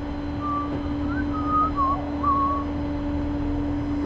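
A person whistling a short wavering tune that stops after a couple of seconds, over a steady low hum of machinery.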